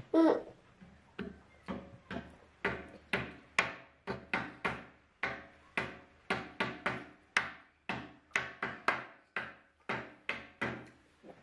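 A steady series of sharp knocks on a hard surface, roughly two a second, each with a short ringing tail, after a short loud vocal cry at the very start.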